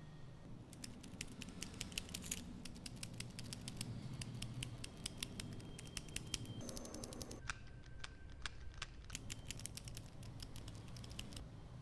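Light, rapid plastic clicks and ticks as a small Kinder Joy Natoons plastic bird figure is handled and its wings and parts are turned and pressed into place. They come in two runs, with a short pause a little past halfway.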